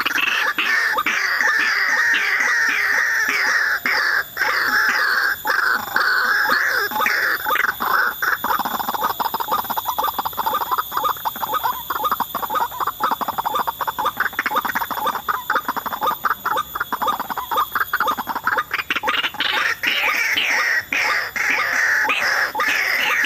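White-breasted waterhen (ruak-ruak) calling in a rapid, continuous run of repeated croaking notes, the call that trappers use to lure the birds in. A steady high whine runs underneath.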